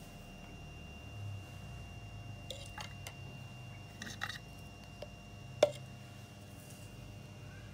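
A spoon scooping soil into a clear jar: a handful of light clicks and taps as the spoon knocks against the jar and the pot, the sharpest about five and a half seconds in.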